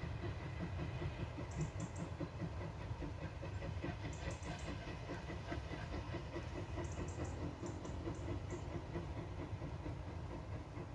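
Steam locomotive working a train in the distance, its exhaust beats coming in a steady rhythm of about four a second over a low rumble.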